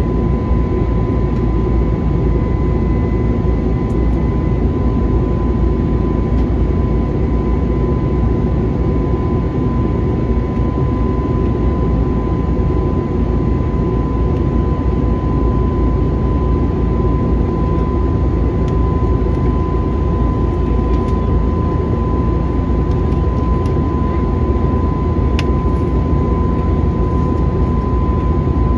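Airbus A321neo airliner in flight, heard from inside the cabin: a steady rush of jet engines and airflow with a thin, steady high-pitched whine.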